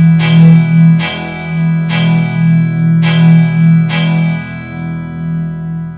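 Background music: an effects-laden guitar striking chords about once a second over a held low note, the last chord about four seconds in left to ring and fade.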